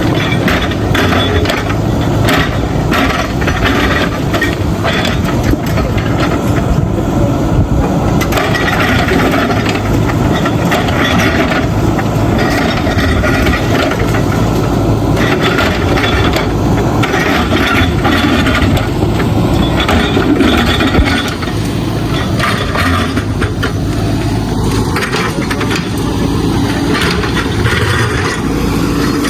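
JCB 3DX backhoe loader's diesel engine running under load, with the clatter and scrape of broken bricks and stones being dug and moved. The engine drops a little in level about two-thirds of the way through.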